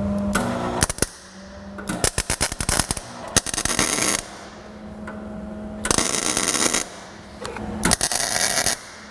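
MIG welder laying tack welds on a steel exhaust cutout flange: several bursts of crackling spatter, each about a second long, with a steady low hum in between. The shielding gas was left off for these tacks, which made the welds ugly.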